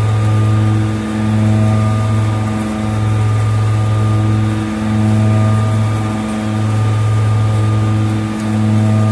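CNC milling machine at its top spindle speed, cutting inside the bore of a large metal ring. A loud steady hum with a stack of overtones, dipping briefly about every two seconds.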